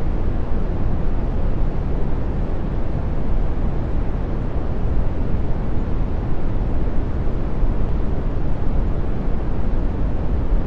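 Brown noise: a steady, deep and soft wash of random noise, heaviest in the low end and fading toward the highs, with no change throughout.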